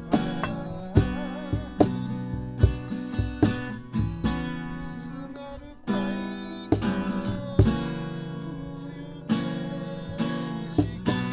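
Acoustic guitar strummed in sharp chord strokes, a fresh stroke about every second, playing a song.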